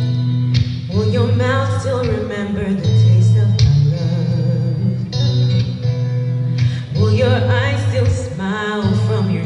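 A woman singing into a handheld microphone over instrumental backing with sustained deep bass notes; her long held notes waver with vibrato.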